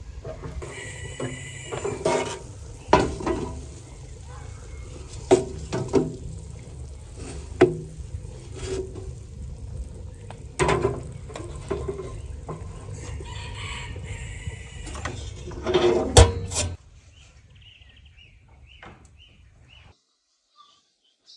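Metal knocks and clanks of a sheet-metal wood stove's oven door and a metal baking tray as the tray is pulled out of the oven, with the loudest clank about sixteen seconds in. After that it goes quieter, with a few short high chirps.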